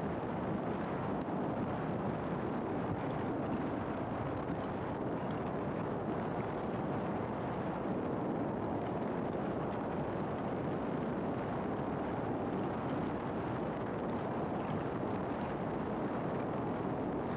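Steady road noise of a car driving: an even rushing of tyres and engine.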